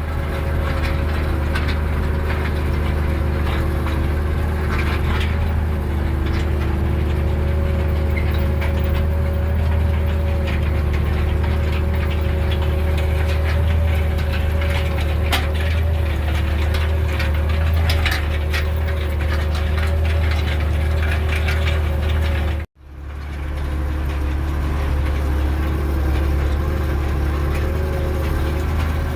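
Tractor engine running steadily under load while pulling a pigtail cultivator across a ploughed field, with faint rattling from the implement. The sound drops out for an instant about three-quarters of the way through and picks up again unchanged.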